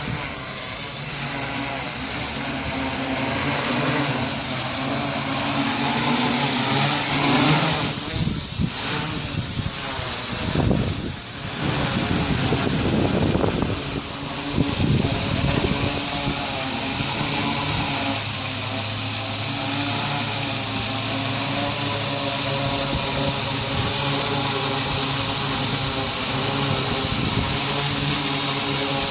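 Hexacopter's six electric motors and propellers buzzing and whining in flight. Around 8 to 12 seconds in, the pitch swoops up and down as the throttle changes, then settles back to a steady hum.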